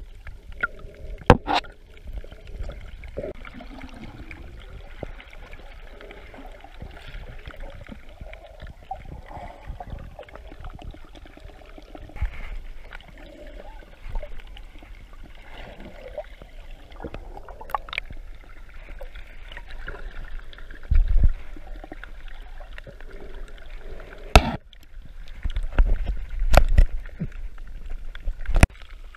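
Muffled underwater water noise with gurgling, picked up by a camera in a waterproof housing below the surface, with several sharp clicks and a few low thumps, most of them in the second half.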